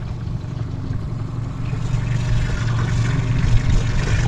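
Boat motor running steadily at trolling speed, a low even hum, with a hiss that builds in the second half.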